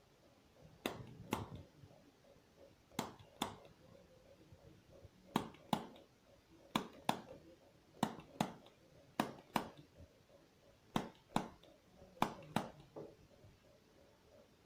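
Eight pairs of sharp clicks, the two in each pair under half a second apart, coming at an uneven pace over a faint background hum.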